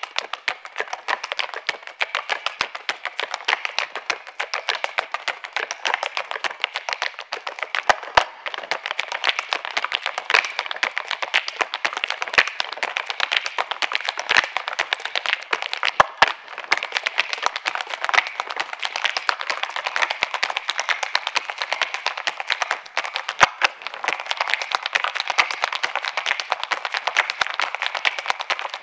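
Irish hard-shoe dancing without music: a dense, rapid stream of shoe taps on a stage floor, with a few heavier stamps standing out.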